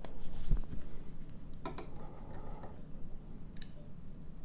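Light metallic clicks and scraping as small tools and pins are handled while gutting an ABUS D6 dimple lock cylinder, with a few sharp ticks scattered through.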